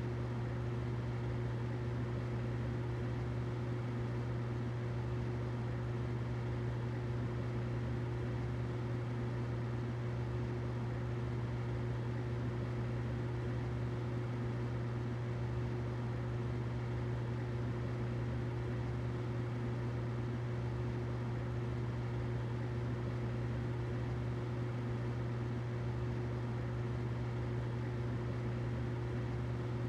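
Humidifier running steadily: a constant low hum with a faint higher tone and an even airy hiss over it, unchanging throughout.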